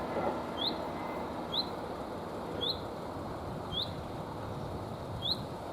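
A bird calling with a short high chirp about once a second, five times, over a steady background hiss and rumble.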